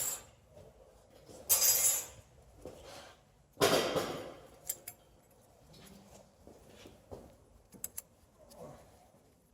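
Loose metal parts and tools clinking and rattling as they are handled during a brake job, with two louder clatters about 1.5 and 3.5 seconds in and small clicks after.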